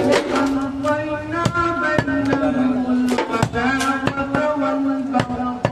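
A heavy cleaver chopping goat meat on a wooden log chopping block: about a dozen sharp chops, irregular, roughly two a second. Behind them runs melodic background music with long held notes.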